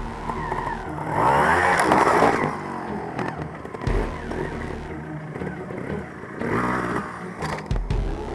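Trial motorcycle engine revving up and dropping back as the bike picks its way over rubble and a stone wall, with the biggest rev about one to two seconds in. A few knocks break through, around the start, about four seconds in and near the end.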